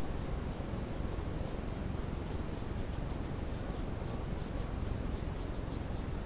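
Steady hiss from a trail camera's microphone, with faint, short, high-pitched ticks a few times a second.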